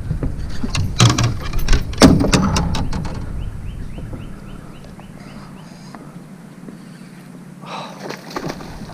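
Knocking and clattering of gear against a small fishing boat as an angler fights a freshly hooked bass, loudest about one and two seconds in. Then it goes quieter, with faint regular ticking and a short rush of water noise near the end.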